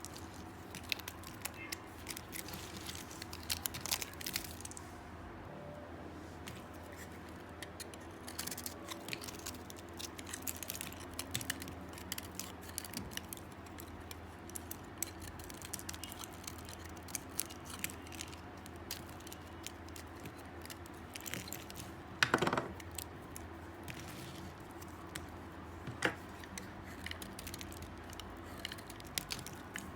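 Dry soap being cut into small pieces, giving a run of crisp crunches and crackles. A louder snap comes about two-thirds of the way through, and another sharp one a few seconds later.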